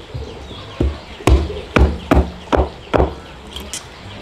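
A blade chopping in a steady rhythm: about six sharp strokes, roughly two a second, with a short pause near the end.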